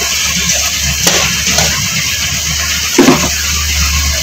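Minced meat frying in hot oil in a pan, a steady sizzle, with a metal spatula knocking on the pan about a second in and more loudly about three seconds in.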